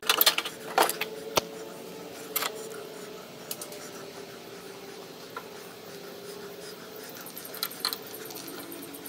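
Light metal clinks and taps from a stainless steel rod handle as shrink tubing is worked onto it. Several come in the first couple of seconds, one about three and a half seconds in, and two close together near the end.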